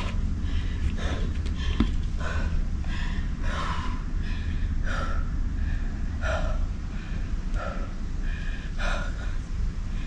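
A person breathing hard after exercise: short audible breaths about every second or so, over a steady low rumble of wind on the microphone.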